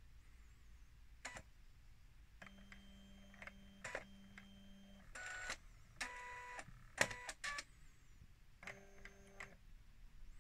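Canon i70 portable inkjet printer's mechanism running in short bursts: a click, then several separate motor whirs with clicks between them. This is a printer that will not print with an aftermarket ink cartridge.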